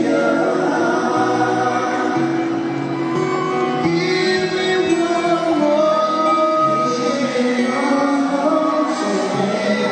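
Male vocal group singing a ballad in several-part harmony over backing music, with long held notes.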